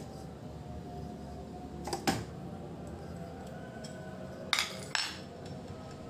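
Sharp metallic clinks as a washing-machine gearbox and a steel tool are handled: one clink about two seconds in, then two more half a second apart near the end.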